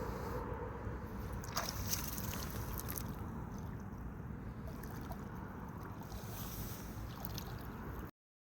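Steady low rumbling outdoor noise, like wind on the microphone, with a couple of faint clicks about one and a half and two seconds in; the sound cuts off abruptly near the end.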